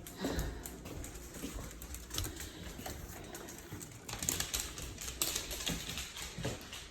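Dogs' claws clicking and tapping irregularly on a hard floor as several dogs walk in.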